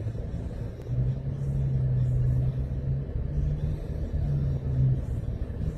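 Low rumble of a motor vehicle engine running close by, with a steady low hum from about a second in until near the end, broken twice.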